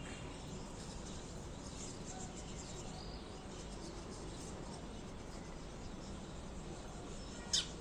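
Sparrows chirping faintly over a steady outdoor background hiss, with one short, sharp chirp near the end.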